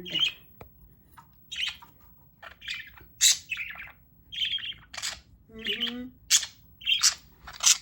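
Budgerigars chirping, a rapid run of more than a dozen short, sharp high chirps and chatter calls.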